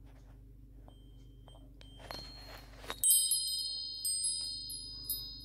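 Metal chimes ringing: a second of rustling noise, then several clear high tones struck together about three seconds in, the loudest moment, struck again a few more times and ringing on.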